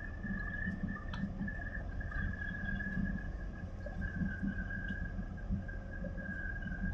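Low, steady rumble of harbour tugboats' diesel engines working alongside a large container ship, with a steady high-pitched whine over it.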